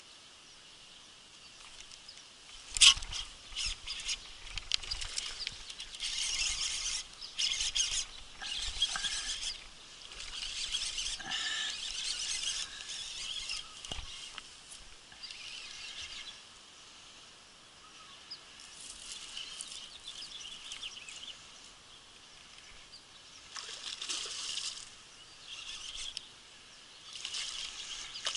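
Birds chirping by a pond, with repeated short hissy bursts of fishing-rod and reel handling and a sharp click about three seconds in. At the very end a hooked bass starts splashing at the surface.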